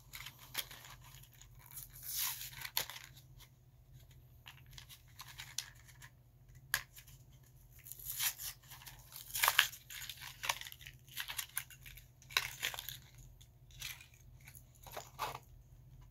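Lure packaging crinkling and tearing in irregular bursts and crackles as it is pried open by hand to free a crankbait.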